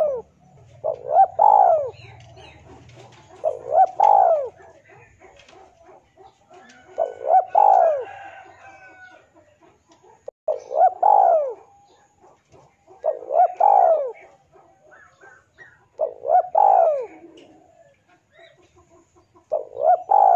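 Male spotted dove cooing its call to a rival male: a short phrase of a few hoarse coos, repeated seven times about every three seconds.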